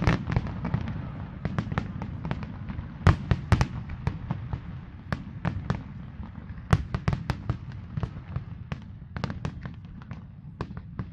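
Aerial fireworks display: a rapid, irregular run of sharp bangs and crackling pops from bursting shells, over a continuous low rumble.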